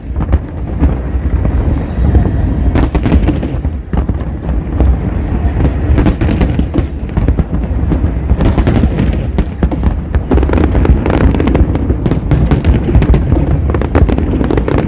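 Aerial fireworks going off in quick succession: a dense run of booms and sharp crackles over a steady deep rumble, thickest about six seconds in and again from about nine seconds on.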